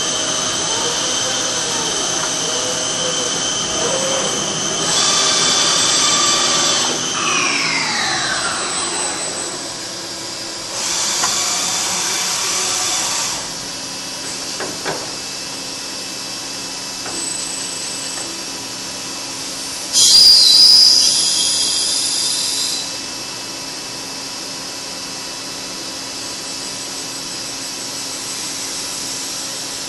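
MTE BF4200 CNC bed mill's universal milling head indexing to a new angle: a steady mechanical whine from the machine's drives, with a whine that falls in pitch as something winds down about seven to nine seconds in. Two bursts of hissing air come about eleven and twenty seconds in, the second the loudest sound.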